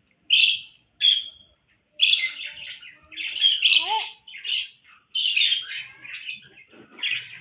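Small pet parrots chirping and squawking: two sharp calls near the start, then a dense run of overlapping high chirps from about two seconds in, with a short gliding call in the middle.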